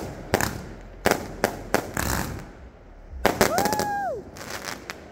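Consumer fireworks going off: a string of sharp bangs and crackles through the first two seconds, then another burst of reports about three seconds in. A brief high call rises and falls just after the second burst.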